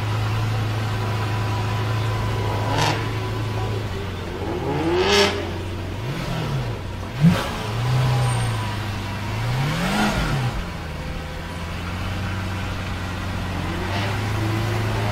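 Lamborghini Veneno's V12 engine idling, blipped about four times in the middle so the revs rise and fall, with a short sharp crack about seven seconds in.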